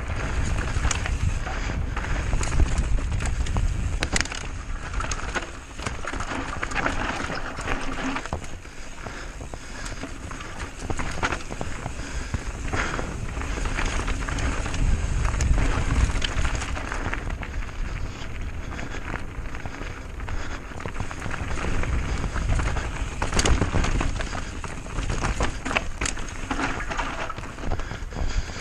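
Mountain bike riding fast down a dirt trail: tyres rolling over dirt and stones and the bike rattling with many sharp knocks over bumps. Wind rumbles on the microphone throughout.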